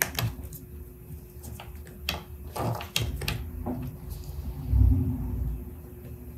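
Light clicks and knocks of 3D-printed plastic crown pieces being handled and fitted together, with a dull low thump about five seconds in.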